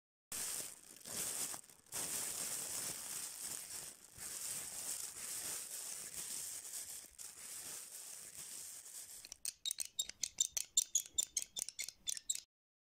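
Black plastic bin bag rustling and crinkling in a steady hissy rustle. Near the end it gives way to about three seconds of rapid crackling at about eight crackles a second.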